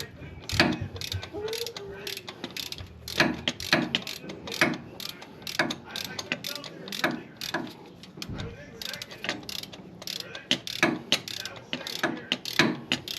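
Socket ratchet clicking in short, irregular strokes on the 5/8-inch oil drain plug of a Harley-Davidson Road Glide. The plug is stuck and won't break loose.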